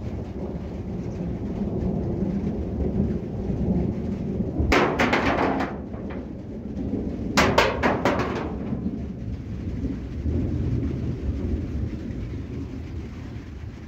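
Thunder rumbling low and continuously, with two sharper crackling peals, about five seconds in and again near seven and a half seconds.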